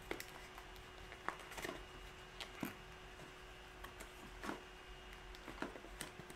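Faint, irregular clicks and scratches of fingernails picking at the top flap of a small cardboard earbud box to open it.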